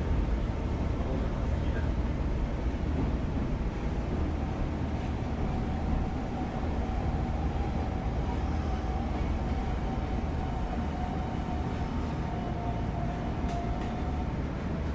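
Running sound of a Hanshin 8000 series electric train: a steady rumble of wheels and traction gear, with a faint whine that slowly falls in pitch from about five seconds in as the train slows.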